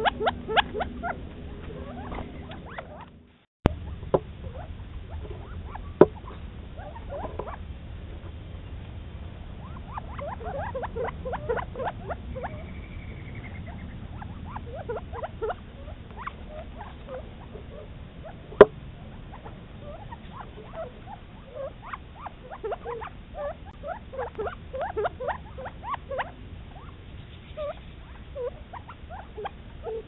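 A covey of Gambel's quail calling while foraging, with many short clucking and chipping notes in quick runs. A few sharp clicks stand out, the loudest about two thirds of the way through.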